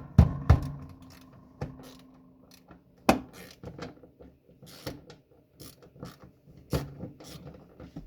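Metal hand tools at work on a small fastener: sockets knocking and clinking, with irregular ratchet-like clicks. Sharp metal knocks come just after the start and again about three seconds in. A brief metallic ring follows the first knocks.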